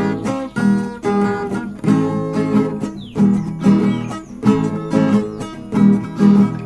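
Acoustic guitar strumming chords in a steady rhythm, the instrumental introduction of a sertanejo song before the singing starts.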